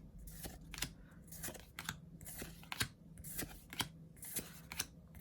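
Pokémon trading cards handled one by one out of a freshly opened booster pack: quiet, short card clicks and slides, about two a second.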